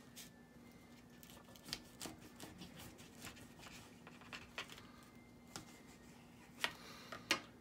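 Knife sawing through a sandwich of bun, lettuce and tomato on a paper plate: faint crackling and scraping strokes, with two sharper clicks near the end.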